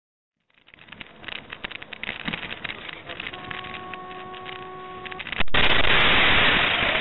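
Minibus dashcam audio: the crackling, rumbling noise of the moving vehicle, with a steady tone held for about two seconds. About five and a half seconds in, a sudden loud rush of noise arrives at the moment of a collision, as passengers are thrown forward.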